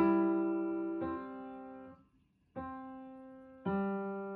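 Background piano music: chords struck about once a second, each ringing out and fading, with a short break about two seconds in.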